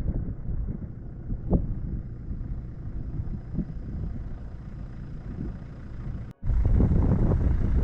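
Strong wind buffeting the microphone: a low, gusty rumble that drops out for a moment about six seconds in and comes back louder.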